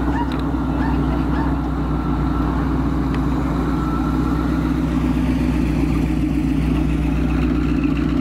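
Hot rod roadster's engine running steadily at low speed as the car drives slowly past.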